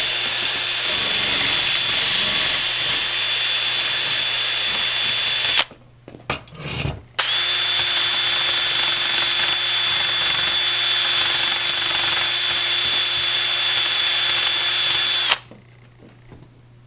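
Small high-speed rotary tool with a wire brush wheel running on brass, scouring the metal clean and shiny so it will take solder. It runs at a steady pitch, stops about five and a half seconds in with a few short knocks, starts again a second and a half later, and stops near the end.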